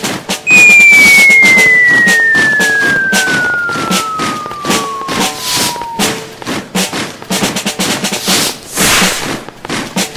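Party sound effects: a loud whistle that slides steadily down in pitch for about five seconds, over a fast drum roll and steady drum beats.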